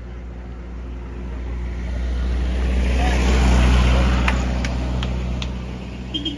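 A motor vehicle passing close by, its engine hum and road noise growing louder to a peak in the middle and then fading away. A few sharp clicks sound in the second half.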